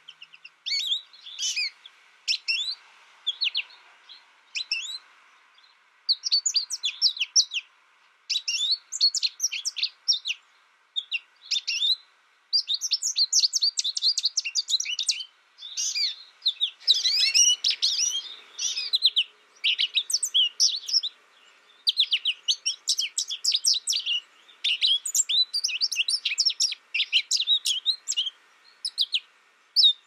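American goldfinch twittering: rapid runs of short, high chirps in phrases of a second or two, separated by brief pauses.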